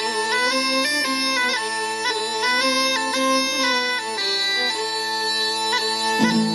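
Background music: a bagpipe-style melody stepping between notes over a continuous drone, with the lower part growing busier about six seconds in.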